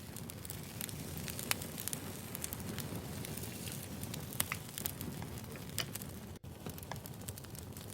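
Firewood burning, with irregular crackles and sharp pops over a steady low rumble of the fire. The sound drops out for an instant about six and a half seconds in.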